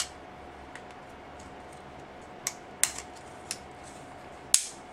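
Sharp clicks and taps of plastic and metal as the parts of a plastic electrical socket are worked and pressed together with needle-nose pliers and a screwdriver; about five separate clicks, the loudest near the end, the snap of a part clicking into its place.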